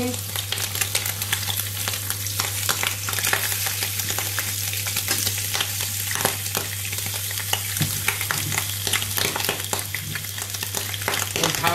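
Slices of ham frying in a hot pan: a steady sizzle full of small crackling pops, over a steady low hum.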